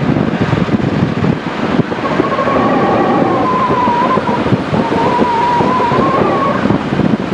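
A vehicle running along with wind buffeting the microphone, a steady rough rumble throughout. A thin, wavering high whine rises in about two seconds in and fades out near the end.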